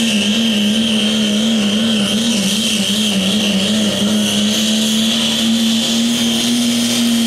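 First-generation Dodge Ram pickup's Cummins diesel pulling hard against a weight-transfer sled at full load, a loud steady drone with a high whistle over it. The pitch wavers in the first half as the truck bogs and recovers, then holds steady.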